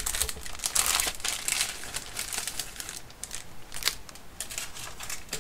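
Clear plastic packaging crinkling as hands open it and pull out a stack of paper. The rustling comes in quick crackly bursts, densest in the first second and thinning out after that.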